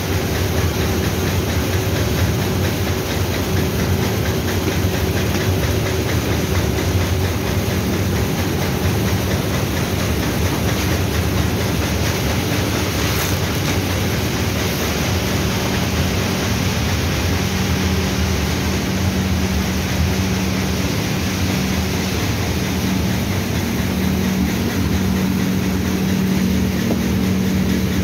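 Raisin-processing machinery running steadily: a constant low mechanical hum under an even, dense noise, with no breaks or changes.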